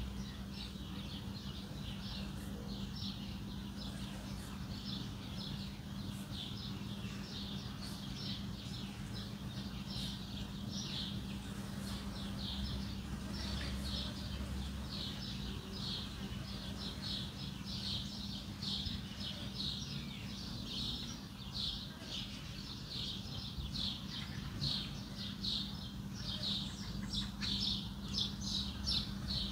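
Many small birds chirping in quick, high, short notes, several a second and getting louder toward the end, over a steady low hum.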